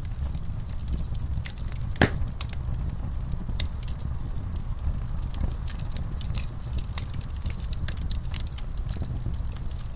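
Fire burning in a fireplace: a steady low rumble of flames with frequent irregular crackles and pops, one louder pop about two seconds in.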